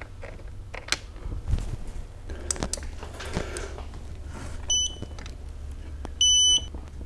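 Clicks and knocks of a wrench working bolts on a transmission case, then electronic beeps from a digital torque wrench: a brief faint one, then a louder, clear high beep of about half a second near the end, the signal that a bolt has reached the set 20 ft-lb.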